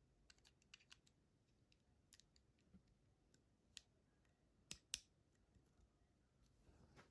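Faint, irregular small clicks, with two louder clicks in quick succession about five seconds in.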